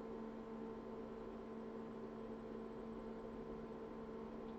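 Steady electrical hum with a faint hiss underneath: room tone, with no other sound standing out.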